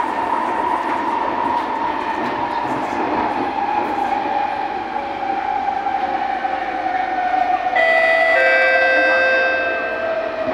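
Inside an MRT train carriage: the train's motors whine in one steady tone that falls slowly in pitch as the train slows, over the rumble of the wheels on the rails. About eight seconds in, a two-note chime sounds for about two seconds.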